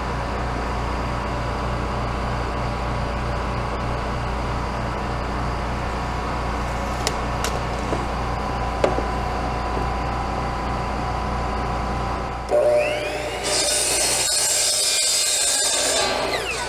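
A steady background hum; then, about three-quarters of the way in, a Ridgid miter saw's motor starts with a rising whine. Its blade cuts through 3-inch PVC pipe with a loud, high hiss for about three seconds, and the motor winds down near the end.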